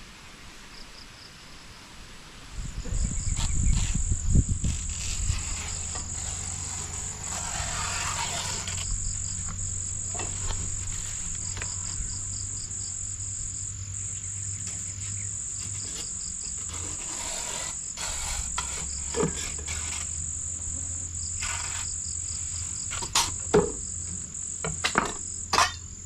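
Insects trilling as one steady, high continuous tone that sets in about three seconds in. Around the same time a loud low rumble of wind on the microphone comes and goes, and scattered knocks and clatters of banana leaves, dishes and mugs being handled come near the end.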